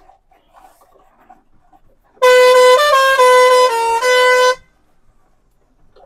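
Truck's musical horn playing a short tune of several held notes, loud, for about two and a half seconds starting about two seconds in.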